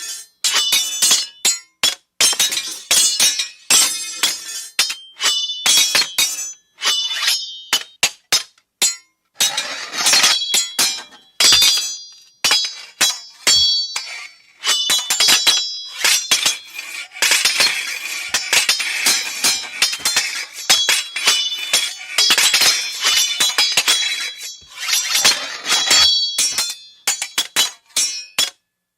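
Swords clashing: a fast series of metal-on-metal strikes, each ringing briefly with a high metallic tone. The strikes come in rapid flurries with short pauses between them, thickest in the second half.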